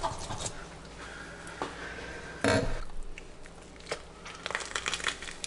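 Knife cutting through the strong bones of a tautog (blackfish) being filleted, with a heavy thump about two and a half seconds in, then a quick run of small cracks and crunches.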